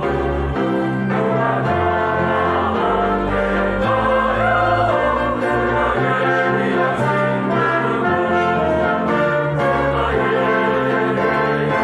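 Mixed church choir singing a Korean anthem, accompanied by an orchestra of strings with a double bass line. The music is steady and full, with changing chords and a moving bass throughout.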